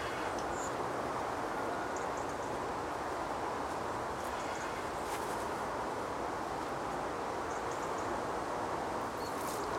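Steady outdoor lakeside ambience: an even rustling hiss with no change in level, with a few faint light ticks.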